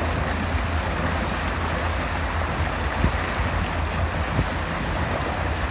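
Steady rush of wind and water over the low drone of a motorboat's engine while towing, heard from aboard the boat, with two brief thumps about three and four and a half seconds in.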